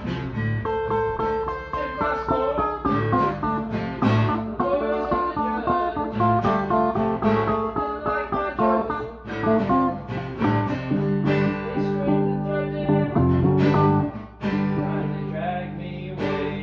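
Stratocaster-style electric guitar being played: a run of picked single notes and chords, with a short break about fourteen seconds in.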